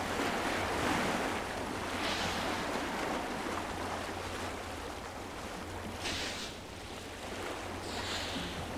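Open-water sea ambience: waves washing and wind rushing, swelling into several louder whooshes, over a low steady hum.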